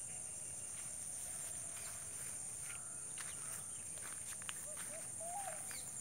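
Steady high-pitched chorus of insects, cricket-like, trilling without a break, with scattered faint clicks and a few short chirps from birds in the background.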